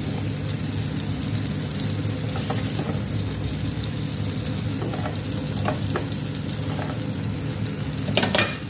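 Sauced chicken pieces sizzling in a hot ridged grill pan, with a few short clicks of metal tongs against the pan as the pieces are lifted out and a louder clatter near the end.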